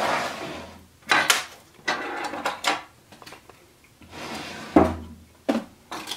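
A wooden drawer being shifted and slid about on a tabletop: wood scraping on wood, with several sharp knocks as it is set down and handled.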